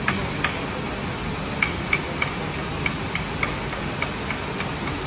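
Steady industrial hall background noise with a string of sharp, irregular clicks, roughly three a second.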